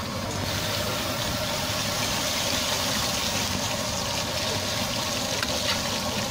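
Meat chops deep-frying in hot oil in an iron wok: a steady sizzle that gets a little louder about half a second in, over a low steady rumble, with a few faint clicks.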